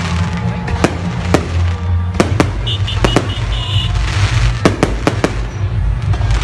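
Fireworks display: aerial shells bursting in sharp bangs at irregular intervals, about nine in all, with a quick run of four close together about two thirds through.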